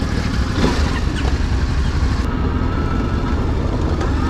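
Motorcycle engine idling steadily just after being started, with an even low beat.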